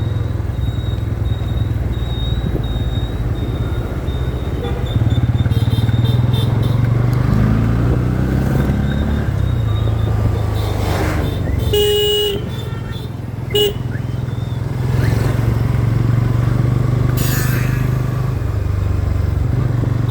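Motorcycle engine running steadily on the move, with road and wind noise. A vehicle horn honks briefly a little past midway, then gives a short toot about a second and a half later.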